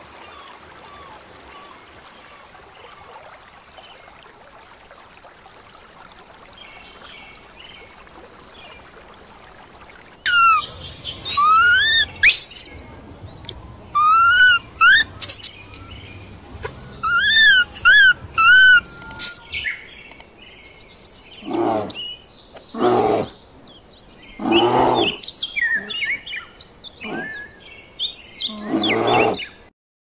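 Faint steady background, then a run of loud animal calls about ten seconds in: repeated high-pitched calls that rise and fall in arcs, followed by several loud, harsh calls in the second half.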